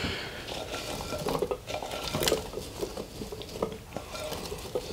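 Cubed raw potatoes being added to a slow cooker: irregular light knocks and clinks of potato pieces and dishware. The sharpest click comes a little over two seconds in.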